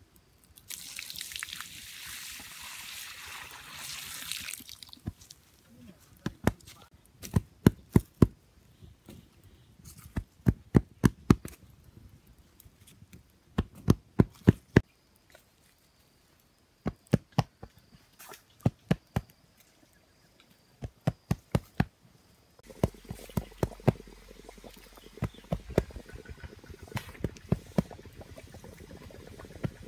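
Water poured with a rushing hiss in the first few seconds, then a wood fire crackling with groups of sharp pops. From about two-thirds of the way in, water in a small clay-lined pit boils with a steady bubbling rush as stones heated in the fire are dropped in, still with sharp cracks.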